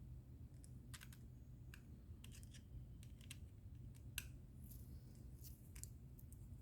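Faint, scattered light clicks and ticks of small metal parts and a tool being handled while a Kershaw Blur folding knife is taken apart, the sharpest click about four seconds in, over a steady low hum.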